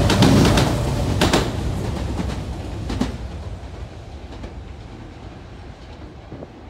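Tokyu 8500 series electric train pulling away, its wheels clacking over rail joints and points: a pair of clacks about a second in and another near three seconds. The rumble fades steadily as the train moves off.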